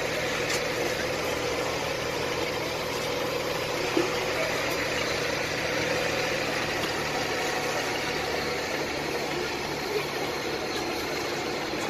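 A vehicle engine running steadily at idle under a constant hiss, with a brief knock about four seconds in and another near ten seconds.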